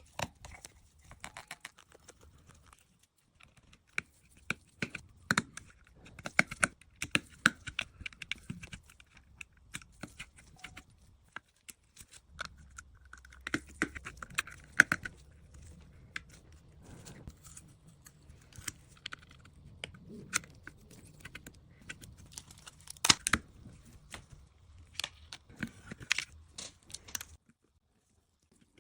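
Small hand tools and iPhone parts being worked during a repair: irregular clicks, taps and light scrapes, some of them sharp, with a faint low hum beneath. It stops shortly before the end.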